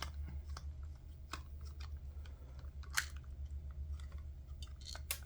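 Scattered small clicks and crackles of plastic headset parts being handled and pried apart, with a sharper snap about three seconds in and a quick run of clicks near the end, over a steady low hum.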